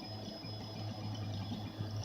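Smartrap RepRap 3D printer running a print: its stepper motors give a steady low hum with thin steady high tones above it and small irregular movement sounds.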